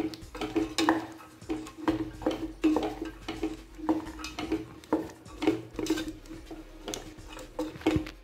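Spatula stirring soaked dried green peas through a thick masala in a steel pressure cooker, scraping and knocking against the pot about twice a second.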